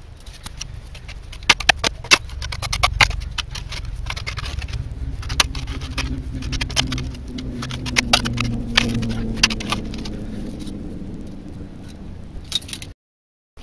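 A spade scraping and scooping loose, stony soil from the bottom of a dug hole, with many sharp clinks of the blade on bits of rock. The sound cuts off abruptly near the end.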